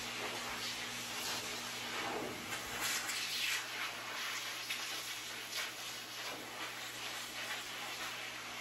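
Forced-air dog grooming dryer blowing through its hose onto a wet dog's coat: a steady rushing hiss over a low hum, swelling briefly about two to three seconds in.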